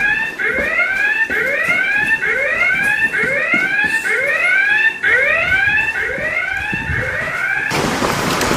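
Whooping alarm siren, the kind sounded to order a fighter scramble, repeating about two rising sweeps a second. It cuts off near the end, giving way to a loud, even rushing noise.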